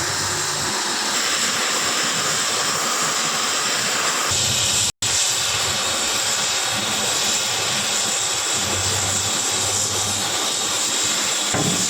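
Cutting torch running with a steady loud hiss as it cuts through 50 mm steel plate. The sound drops out for an instant about five seconds in.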